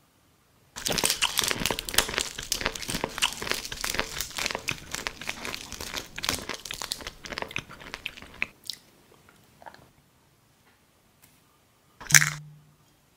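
Close-up crunching and chewing, many crisp bites in quick succession for about eight seconds, made as the sound of eating a paint brush. Then a few soft ticks, and one short louder sound near the end.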